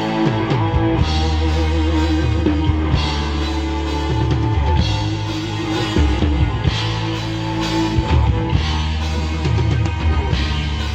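A rock band playing through a sound check. Drums and cymbals play, with the cymbals coming round about every two seconds, over long, held low bass notes that change every second or two.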